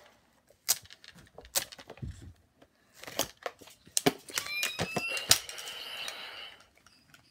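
Handling noise close to a phone's microphone: scattered clicks, knocks and rustling, with a brief rising squeak and a hiss about halfway through.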